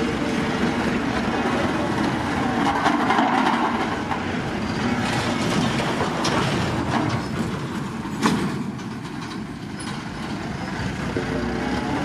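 Heavy road-construction machinery, such as a motor grader or road roller, running steadily on crushed gravel, with one sharp knock about eight seconds in.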